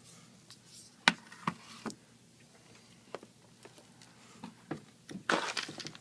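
Scattered small clicks and taps, with a brief scrape near the end, from handling an iPad's parts and small repair tools during a glass repair.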